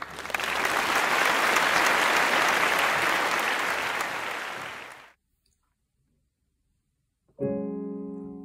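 Applause, an even patter of clapping, that fades out after about five seconds. After a short silence, a piano chord is struck near the end and left to ring, dying away slowly.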